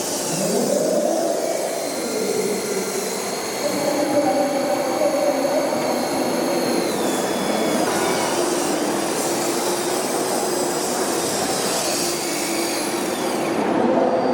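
Small electric motors of miniature remote-control vehicles whining, rising and falling in pitch as they speed up and slow down.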